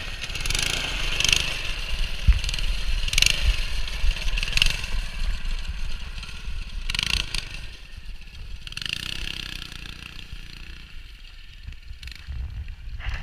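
Small single-cylinder engine of a homemade go-kart running under throttle as the kart drives over snow, with surges of hiss. The engine grows fainter in the second half as the kart pulls away.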